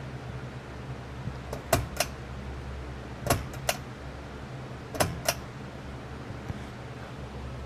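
Casablanca Panama ceiling fan with its XTR 200 motor running, a steady low motor hum. Pairs of sharp clicks come about every second and a half, three times.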